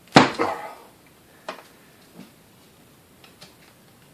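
Hand tools working on the metal motor housing of a 1934 Sunbeam Mixmaster during disassembly: one loud knock just after the start, then scattered light clicks and taps.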